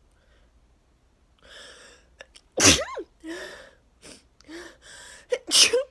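A woman sneezing twice, about three seconds apart, each sneeze led in by a noisy in-breath, with short breaths between. It is part of an allergic sneezing fit that she blames on freshly cut grass.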